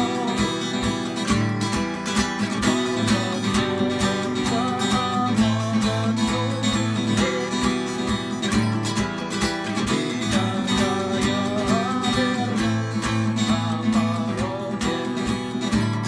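Acoustic guitar strummed in a steady, even rhythm.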